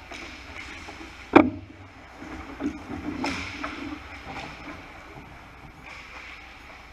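Ice hockey game play: a sharp loud knock about a second and a half in, then a few fainter knocks over a steady rink hiss.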